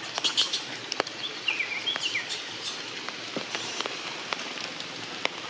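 Heavy rain falling, a steady hiss with many sharp drops striking close by. A few short high chirps come between about one and two and a half seconds in.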